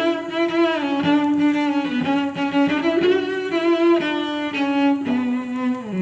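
Background music: a bowed-string melody, cello and violin, playing continuously and moving in steps from note to note.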